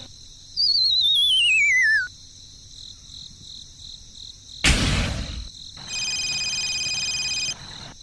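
Sound effects: a wavering whistle sliding down in pitch, a short burst of noise a few seconds later, then a steady high electronic tone near the end.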